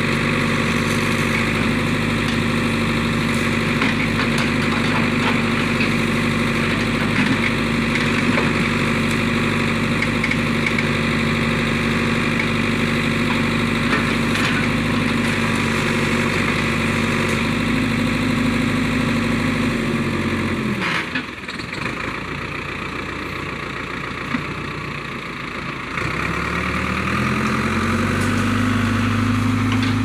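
Ford 6550 backhoe loader's diesel engine running steadily under work. About two-thirds through, the engine speed drops and it runs slower and quieter for about five seconds, then revs back up to its working speed near the end.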